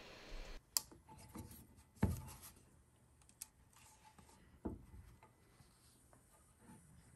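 Faint handling sounds of a Nikkor-S 55mm f/1.2 lens being twisted onto a Nikon camera adapter: a few soft knocks and clicks with light rubbing between them.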